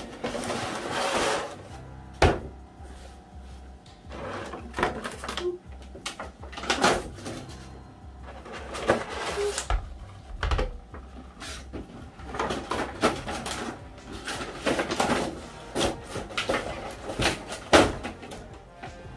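A Funko figure's cardboard box and packaging being handled and opened: irregular rustles, scrapes and knocks, over background music.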